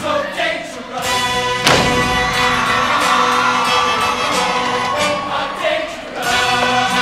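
Show choir number in full swing: band music with the choir singing, and a sharp accented hit about a second and a half in.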